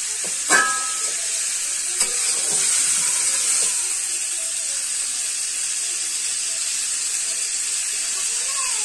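Rohu fish pieces sizzling steadily in hot oil and spice paste in a metal pan as they are stir-fried (kosha), with a metal spatula turning them; a sharp ringing clang of the spatula on the pan about half a second in and a lighter click about two seconds in.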